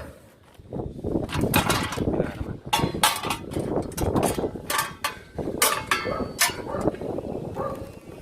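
Irregular sharp knocks and clatter of parts being handled and fitted while assembling the base of a solar water heater, a dozen or so hits at uneven spacing.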